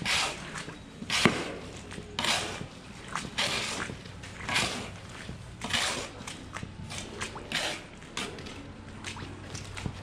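Long-handled barn scraper raking and scraping through sand bedding in cow cubicles, in rasping strokes about once a second, over a faint steady low hum.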